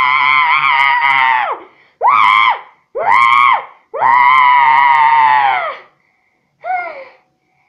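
A child's high-pitched voice screaming: a long scream, two short ones, another long scream, then a brief falling cry near the end.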